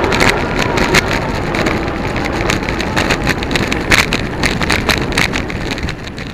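Wind buffeting the microphone of a bicycle-mounted camera over the rumble of the tyres on the road, with frequent small knocks and rattles as the bike and camera mount go over the uneven surface. The sound fades out near the end.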